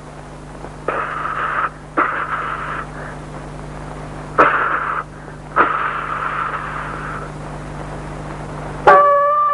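Cartoon saxophone sound effect on an early 1930s optical film soundtrack: four raspy, hissy honks with sharp starts and no clear pitch, over a steady hum. About nine seconds in, a loud pitched tone with overtones cuts in.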